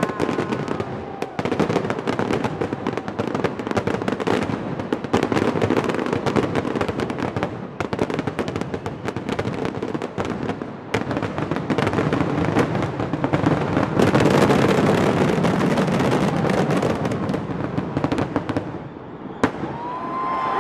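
Fireworks finale: a dense barrage of rapid bangs and crackles over a continuous rumble, with a brief rising whistle near the start. The barrage thins out near the end.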